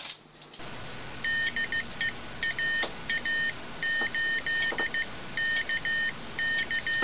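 Morse-code-style beeping: high tones keyed on and off in a pattern of short and long signals, over a steady hiss, with a few faint clicks.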